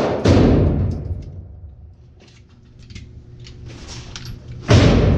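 Two loud gunshots about four and a half seconds apart, each with a long echoing tail, and faint clicks between them.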